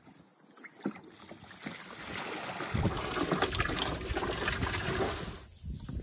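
Wind buffeting the microphone: a low rumble with scattered crackles that comes up about three seconds in and holds.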